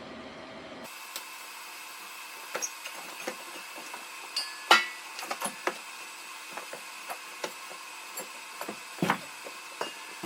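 Irregular light taps, clicks and knocks of tools and metal parts being handled, with a louder knock about halfway through and another near the end.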